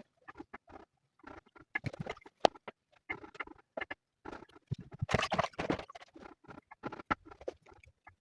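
Irregular light taps, clicks and rustles, as of items being handled, with a busier, noisier stretch about five seconds in.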